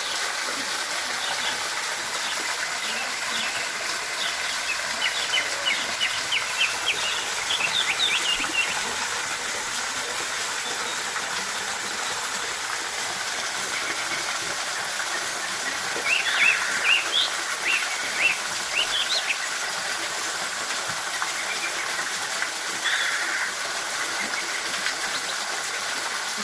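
Waterfall water rushing with a steady hiss, with birds chirping over it in two quick runs of calls, about five seconds in and again about sixteen seconds in.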